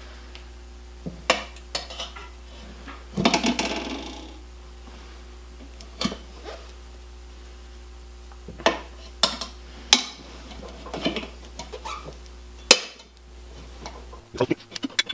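Steel tyre irons clinking and knocking against a motorcycle's cast wheel rim and each other as a new tyre's bead is levered on, with a longer scrape about three seconds in.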